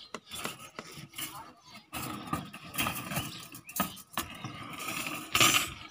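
Indistinct voices of workers talking, with scattered knocks and clatters, and a loud noisy burst near the end.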